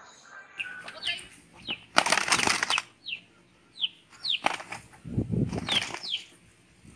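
Two cocks fighting: wings flapping in bursts, loudest about two seconds in and again near the five-second mark, with several short high falling chirps.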